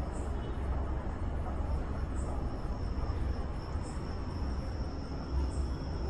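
Outdoor night ambience: a steady high insect trill with short high chirps every couple of seconds, over a low steady rumble.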